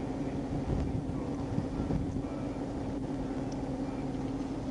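Steady hum of an idling vehicle engine, with a constant low drone and a few faint low bumps between one and two seconds in.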